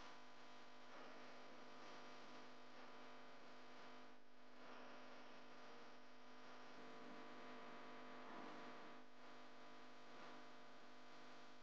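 Near silence: a faint steady electrical hum with a light hiss.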